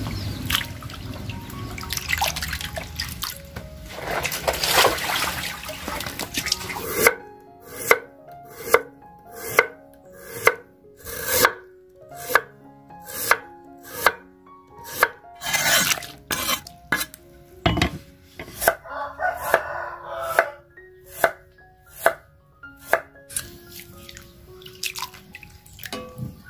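Kitchen knife slicing peeled taro into thin chips on a wooden cutting board, sharp chops at about two a second, over background music. Before the chopping begins there are several seconds of a dense rustling, splashing noise.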